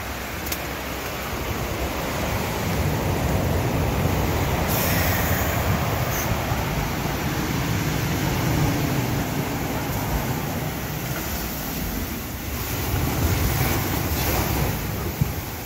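Heavy storm surf breaking against a low sea wall and surging over a patio: a continuous deep rushing of waves that swells about two seconds in and rises and falls with each wave. A brief thump near the end.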